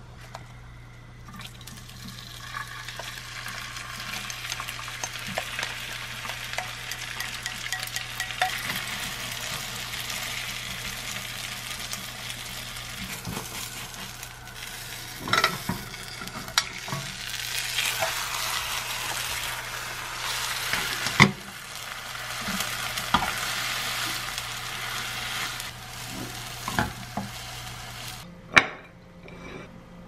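Shredded cabbage, carrot and egg mixture sizzling as it fries in a square egg pan on a gas hob, the sizzle building over the first few seconds. A cooking utensil scrapes and knocks against the pan now and then, with the sharpest knocks about 21 seconds in and near the end.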